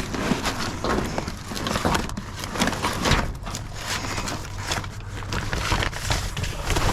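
Rustling, crinkling and clattering of plastic bags and food packages being rummaged through and handled in a dumpster, irregular knocks and crackles, over a steady low hum.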